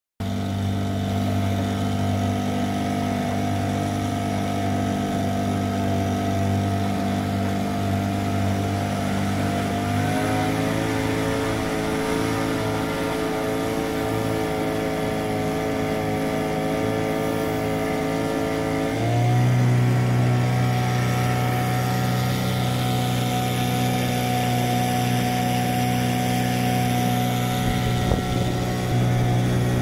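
Small motorboat's engine running steadily under way, with water and wind noise. Its note rises a little about a third of the way in, then shifts again and grows somewhat louder around two-thirds of the way through.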